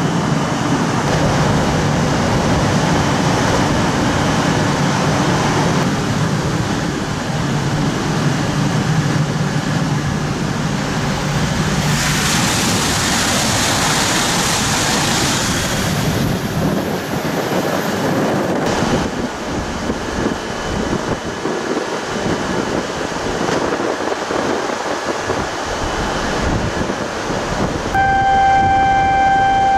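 Red E6 series Komachi Shinkansen standing at the platform: steady running noise from the train with a low rumble, and a louder burst of hissing about twelve seconds in that lasts a few seconds. Near the end a steady high tone starts and holds.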